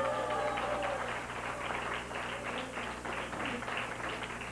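Scattered hand clapping from a small studio audience, picking up about a second in after a brief voice at the start.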